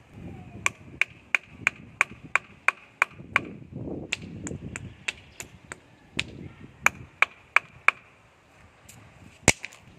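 Sharp, ringing taps in quick even runs of about three a second: three runs, then one louder single knock near the end.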